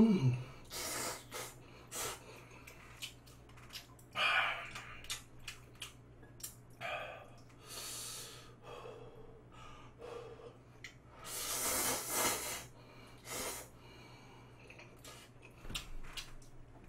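A person eating spicy stir-fried noodles close to the microphone: slurping, chewing and small clicks of chopsticks and mouth. Several loud, hissing breaths or slurps come between mouthfuls, and a short vocal grunt comes right at the start.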